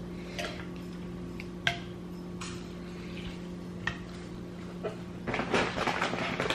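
Wooden chopsticks stirring ramen in a glass pot, knocking lightly against the glass about five times. Near the end a louder, rougher stretch of noise comes in as the noodles are lifted out of the broth.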